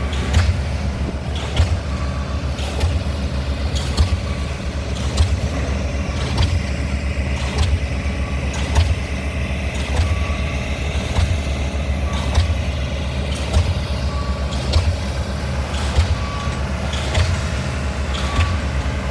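DD65 diesel pile hammer driving a concrete pile: sharp blows in an even rhythm, a little under one a second, over a steady low engine drone.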